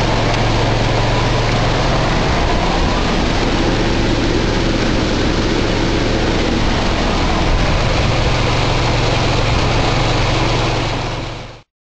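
A heavy machine's engine running steadily, a low hum under a loud, wide rushing noise, fading out near the end.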